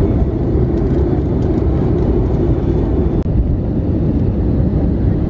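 Steady jet airliner cabin noise from a seat beside the engine, engine and rushing air together, during the descent toward landing. A faint click comes about three seconds in.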